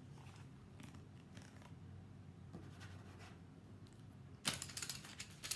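Quiet room tone, then about four and a half seconds in a sudden rustling starts, a rapid string of dry crackles that keeps going.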